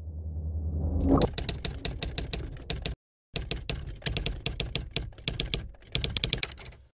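Typewriter keystrokes clattering in rapid runs as a title is typed out, stopping briefly about three seconds in and thinning near the end. A low rumble swells under the first second, peaking as the typing begins.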